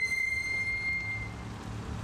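Low engine rumble of modified cars driving slowly past. A clear, high-pitched tone starts sharply at the beginning and fades away over about a second.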